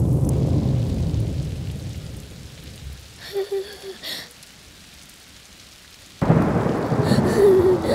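Thunderstorm: a low rumble of thunder fades away over the first few seconds, then after a lull a sudden loud clap of thunder breaks in about six seconds in, with rain. A few short wavering tones sound in the lull and after the clap.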